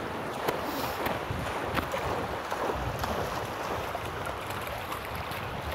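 Steady water sloshing and splashing, with scattered short splashes and knocks, and wind buffeting the microphone.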